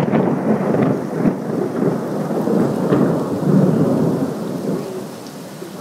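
Thunder rumbling over steady rain, swelling several times and then fading near the end, picked up by an iPhone's microphone.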